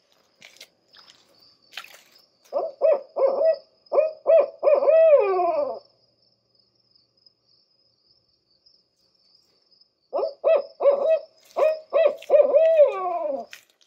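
Recorded barred owl call played back to draw a response: two 'who-cooks-for-you' phrases of rhythmic hoots, each ending in a long falling note, a few seconds apart.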